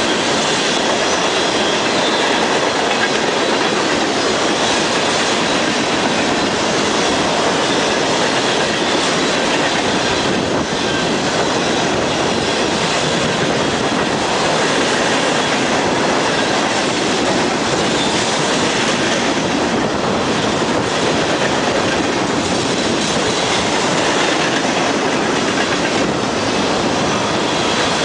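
A long string of freight-train tank cars rolling past: steady, loud noise of steel wheels running on the rails, with no break.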